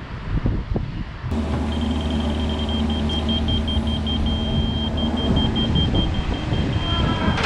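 Heavy construction machine engine running steadily, with a high electronic beeping over it that starts about a second in after a sudden change in the sound.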